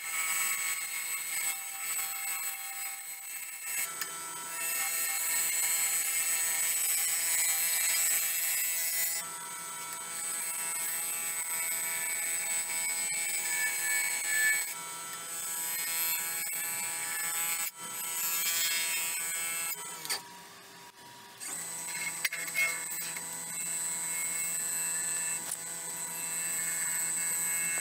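Wood lathe running with a steady whine while a bowl gouge cuts the spinning maple burl and resin blank, a rushing hiss of shavings coming off the tool. The cutting and whine break off for about a second and a half roughly two-thirds of the way through, then resume.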